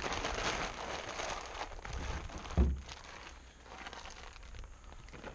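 Rustling and handling noises close to the microphone, with one heavy thud about two and a half seconds in, then quieter rustling.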